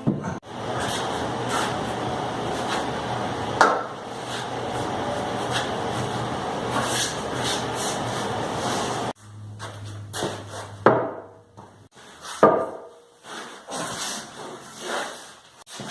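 Wooden parts being handled and knocked together, with knocks and scraping. A steady noise with a low hum fills the first half and cuts off suddenly, leaving scattered separate knocks and rubbing.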